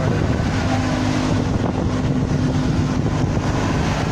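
Heavy machinery running steadily, a low, even engine hum with no change in speed.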